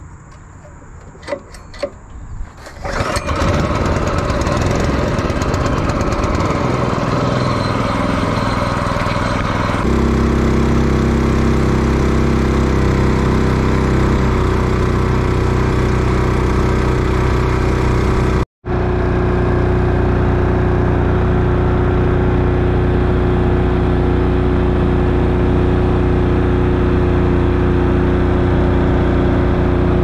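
Small gas outboard motor on a jon boat, started after a few clicks about three seconds in, then run under way at a steady, even pitch from about ten seconds. A momentary dropout comes a little past the middle.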